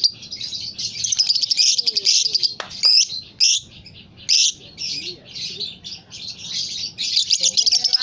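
Fischer's lovebird chattering: fast, continuous high twittering in long runs, broken by short pauses about three and a half seconds in and again about seven seconds in.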